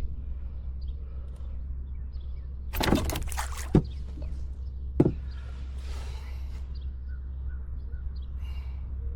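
Two sharp knocks, after a brief rattling clatter about three seconds in, over a steady low rumble, with faint bird chirps.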